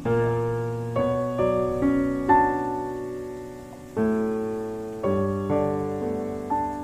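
Background piano music: slow chords struck about once a second, each ringing out and fading.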